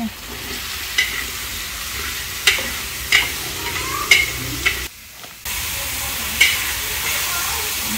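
Shallots and mushrooms sizzling in hot oil in a large wok, a steady hiss, with a stirring utensil knocking sharply against the pan about half a dozen times. The sizzle drops out briefly about five seconds in.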